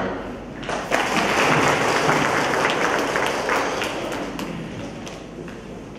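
Audience applauding. The clapping starts about a second in and fades out toward the end.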